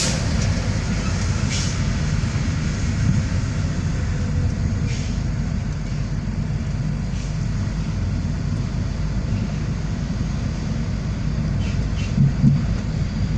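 Steady low rumble of a car's tyres and engine heard inside the cabin while driving on a highway, with a few faint ticks and a couple of short bumps near the end.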